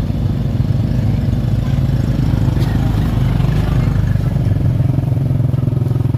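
A small engine running steadily and close by, with an even firing beat and no change in speed.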